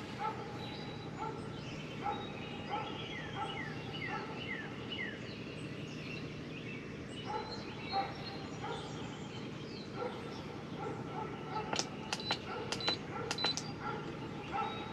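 Birds chirping and singing, with short falling whistles, over a faint steady low hum. A quick run of sharp clicks comes about twelve seconds in.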